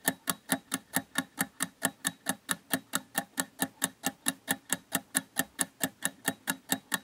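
Countdown-timer ticking sound effect: even, rapid clock-like ticks, about five a second.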